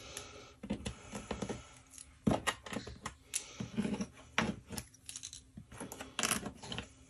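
Small chipboard pieces clicking and tapping as they are picked up off a tabletop one by one and gathered into a hand, a string of irregular light clicks.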